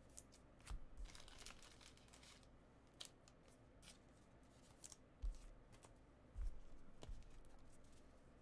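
Faint handling of trading cards and packs on a table: scattered short scrapes and rustles, with a few soft thumps, the loudest about five seconds in and again near six and a half seconds.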